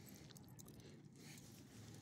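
Near silence, with faint small crunches and clicks from small dogs moving and sniffing on gravel.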